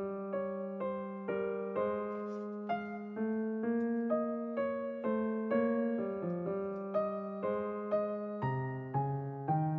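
Background piano music, notes struck about twice a second at a steady, gentle pace.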